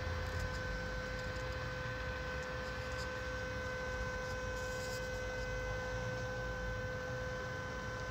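A steady electrical hum at one pitch with overtones, over a low, even rumble.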